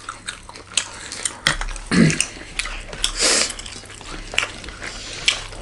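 Close-up eating sounds: chewing and mouth noises, with scattered light clicks of utensils against a plate and a brief low voiced sound about two seconds in.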